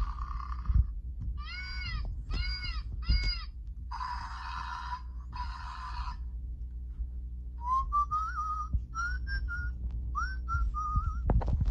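Whistling: breathy blown attempts, three short rise-and-fall whistled notes, more breathy blowing, then a string of wavering whistled notes near the end, over a steady low rumble.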